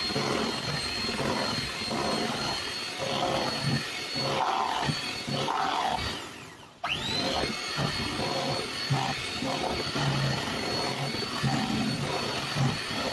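Kenwood electric hand mixer running with a steady high motor whine as its beaters churn thick fruit-cake batter in a steel bowl. About six seconds in the sound fades out, then the motor spins back up with a rising whine.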